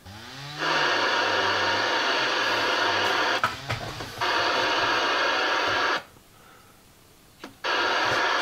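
Static hiss from a Uniden CB radio's speaker, cutting in and out abruptly three times while the radio's controls are worked, with a few clicks in the gaps.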